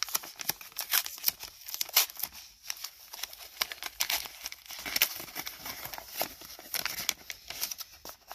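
Taped white paper envelope being torn open by hand: irregular crackling rips and crinkles of paper, loudest in a few sharp tears.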